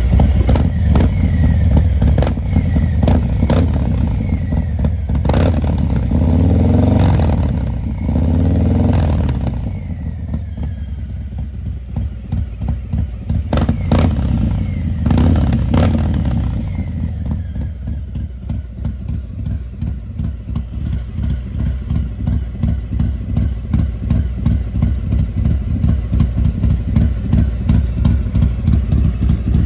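2022 Harley-Davidson Street Bob's Milwaukee-Eight 114 V-twin, fitted with an S&S 475 cam and a Vance & Hines 2-into-1 Hi-Output Short exhaust, idling with a choppy beat. It is blipped by the throttle a few times in the first half, the revs rising and falling, and then settles back to idle.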